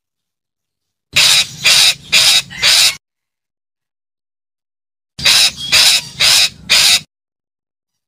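Red-breasted parakeet calling: two bouts of four loud calls each, about half a second apart, the second bout coming about four seconds after the first.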